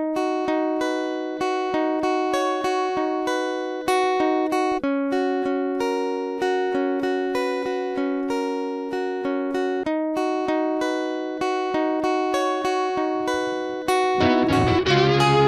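Background music of evenly picked, guitar-like plucked-string notes in a steady rhythm. Near the end a bass line and a fuller accompaniment come in and the music gets louder.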